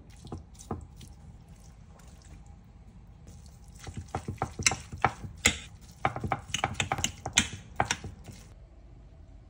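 Metal forks clicking and scraping against a glass baking dish as cooked pork is shredded: a run of quick, irregular clicks starting about four seconds in and stopping about a second before the end, with a couple of fainter ones near the start.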